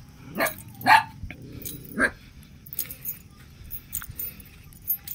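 A dog barking: three short, sharp barks in the first two seconds or so, followed by faint scattered clicks.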